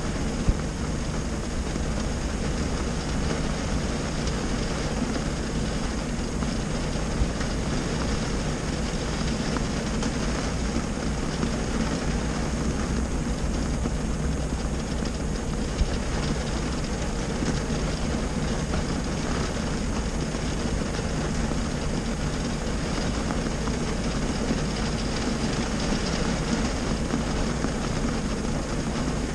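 Rain falling on a stationary car's roof and windshield, heard from inside the cabin as a steady hiss over a low rumble, with a few sharper taps now and then.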